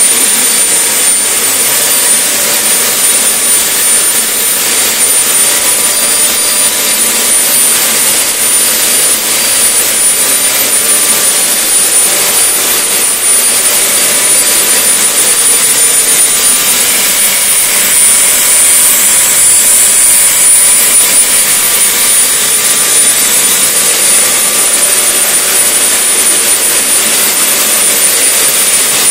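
Small experimental helicopter turboshaft (gas turbine) engine running steadily: a loud, high-pitched turbine whine over an even rush of air and exhaust. The whine steps up slightly in pitch about half a second in and again about six seconds in.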